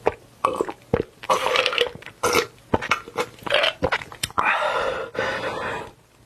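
Wet mouth clicks and smacks from eating, then one long burp, lasting over a second, about four and a half seconds in.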